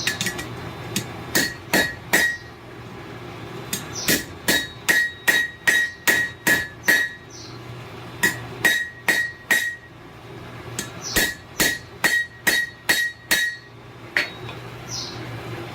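Hammer blows on hot steel over an anvil, shaping a chain hook forged from a railroad spike. Sharp ringing strikes come in four bursts: three blows, then about nine, then about five, then about seven, with short pauses between.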